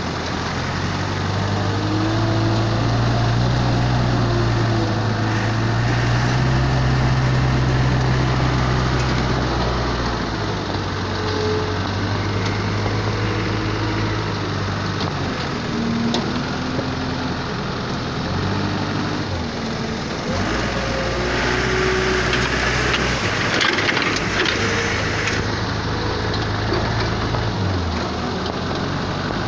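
Komatsu WA100M compact wheel loader's diesel engine running under load while it digs and lifts sand, its pitch stepping up and down several times as the engine speed changes. A harsher, hissier stretch comes about three-quarters of the way through.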